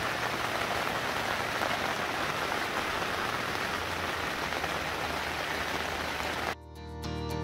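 Rain falling steadily, a dense even patter that cuts off abruptly near the end.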